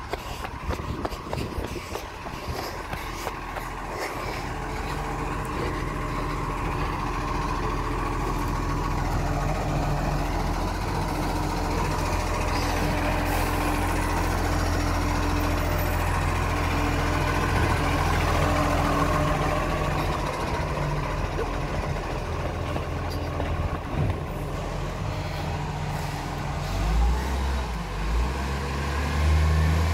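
Iveco Acco garbage truck's diesel engine running as the truck drives by, growing louder through the middle; the engine revs up near the end.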